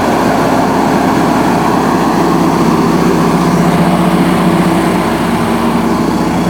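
Generac QuietSource 27 kW standby generator's liquid-cooled inline-four engine running steadily on natural gas at its governed speed of about 1800 rpm, loud near the exhaust side.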